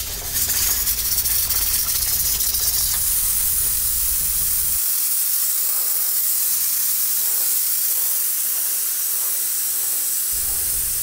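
Steam hissing steadily and loudly out of an aluminium pressure cooker's valve, rising to full strength about half a second in, as the pressure is let off so the lid can be opened after cooking.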